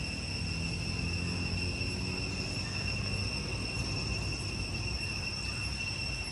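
Steady high-pitched drone of insects, holding two even pitches, over a low rumble.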